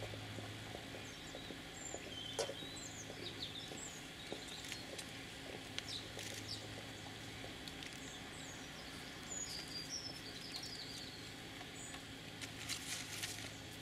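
Small birds chirping with short high calls and brief pitch glides, scattered through a quiet steady background hum. A few faint clicks come near the end.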